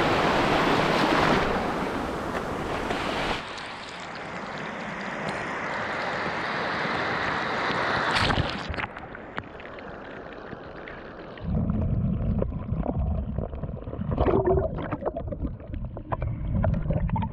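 Surf washing on a beach with wind noise on the microphone, changing abruptly at a few cuts. In the last third a low rumble comes in, with scattered clicks.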